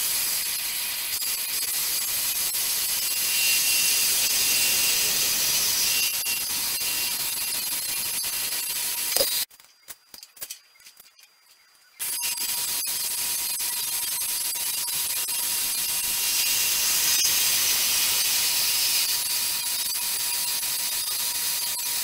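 Horizontal metal-cutting bandsaw running, its blade cutting through steel stock with a steady high-pitched hiss. The sound breaks off for about two seconds near the middle, then carries on.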